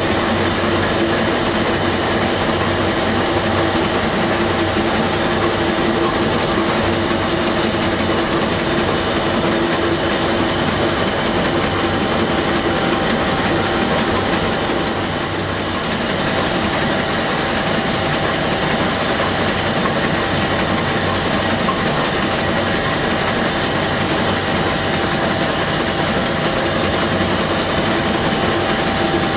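Werkspoor 2100 hp four-stroke marine diesel engine running steadily at close range: a loud, even mechanical din with a couple of steady tones running through it, briefly a little quieter about halfway through.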